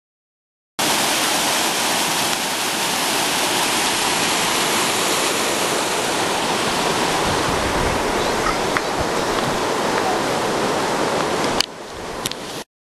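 Garden fountain water splashing and running in a stone canal: a loud, steady rush that drops away suddenly near the end, with a couple of short clicks.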